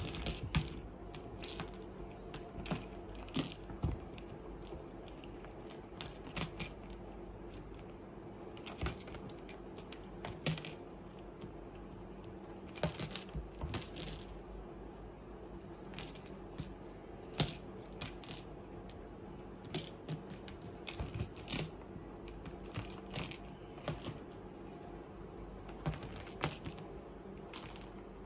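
A small plastic ball clicking and clattering against a plastic basket as a kitten bats and grabs it, in irregular clicks and short flurries of knocks.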